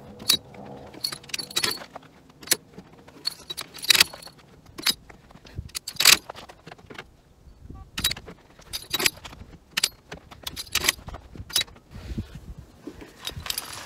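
Metal clinks and clacks of an A-Star helicopter's cargo hook and the long line's steel fittings being handled, an irregular string of sharp jangling clicks while the hook's release is tested.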